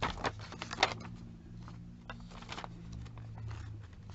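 Pages of a glossy paper catalogue being flipped quickly by hand: a run of paper rustles and page flicks, loudest in the first second, with a few more flicks about two and three and a half seconds in, over a faint low hum.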